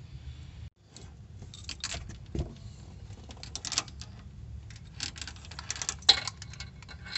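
Steel roller chain of a Tekiro chain-type oil filter wrench rattling and clinking in irregular jingles as it is handled and looped around a car's spin-on oil filter, the loudest clink about six seconds in. The sound drops out briefly just under a second in.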